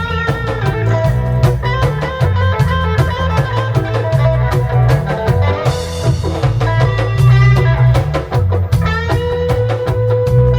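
Live reggae band playing an instrumental lovers rock passage: a heavy bass line, a drum kit keeping an even beat, and guitar.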